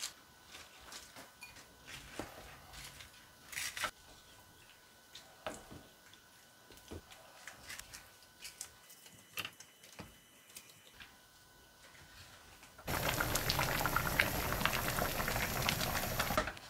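Faint rustling and light knocks as bok choy leaves are pushed into a pot of soup and stirred with a wooden spoon. About 13 seconds in, the boiling tamarind stew starts bubbling loudly, a dense crackling simmer, and cuts off suddenly a few seconds later.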